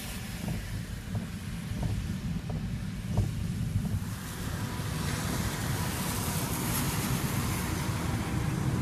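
Steady low rumble of wind on the microphone with a hiss of rain, heard from inside a car during a thunderstorm.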